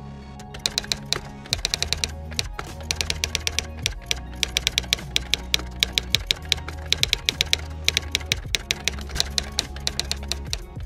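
Rapid typing key clicks in bursts with short pauses, a typewriter-style sound effect for text being typed onto the screen, over background music with sustained low notes.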